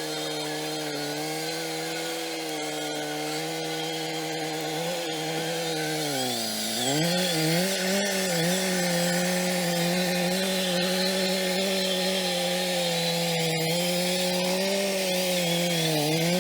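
Winch motor whining steadily as it pulls. Its pitch sags about six seconds in as it takes up load, then recovers and holds.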